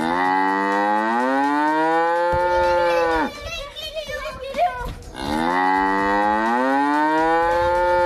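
A cow mooing: two long moos about two seconds apart. Each rises slightly in pitch and drops off at its end.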